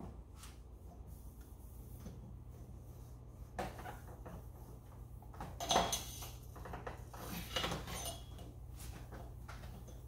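Wet cloth rag wiping a stainless steel refrigerator door, with a few short rubbing and scrubbing sounds, the loudest about halfway through, over a steady low hum.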